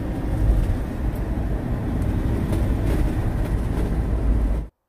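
Steady low road and engine rumble inside a moving camper van's cabin, cutting off abruptly near the end.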